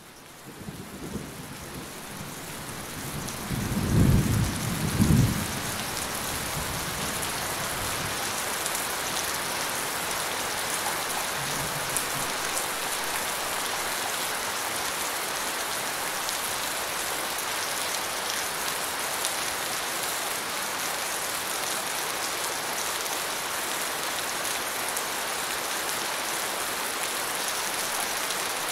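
Steady rain fading in at the start, with a loud low rumble of thunder that peaks twice, about four and five seconds in.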